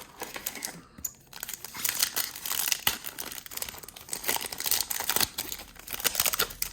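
Foil trading card pack wrapper being torn open and crinkled by hand, a dense irregular crackling that starts about a second in and continues.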